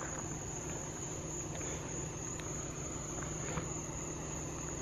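Steady chorus of night insects, a high continuous trill that holds one pitch without a break.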